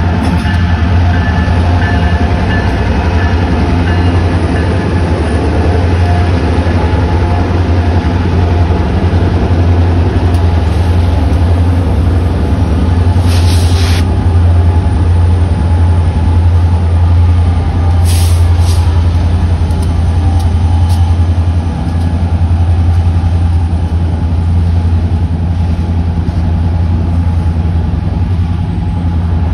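Four diesel-electric freight locomotives working past under load, a loud, steady, deep engine rumble. Two brief hisses come through about 13 and 18 seconds in.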